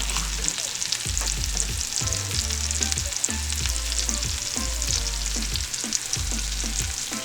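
Panko-coated fish fillets frying in hot butter in a pan: a steady sizzle with dense crackling spatter.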